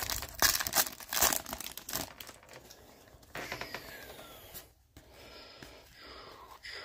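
Foil wrapper of a Topps baseball card pack being torn open and crinkled, loudest in the first two seconds, then a softer rustle as the stack of cards is handled and flipped through.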